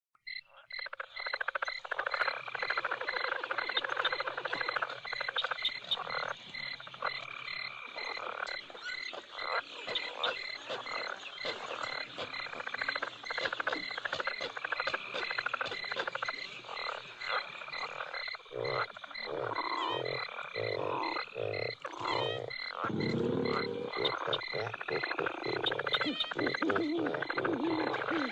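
Night-time bayou ambience: a dense chorus of frogs croaking over an evenly pulsing insect chirp. Lower, deeper croaks join in during the last third.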